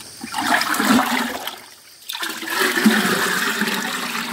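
Fertilizer solution scooped up and poured back into a tub of water with a plastic scoop: a splashing stream of liquid, in two pours with a short pause about two seconds in. The stirring is dissolving granular fertilizer that has not yet fully melted into the water.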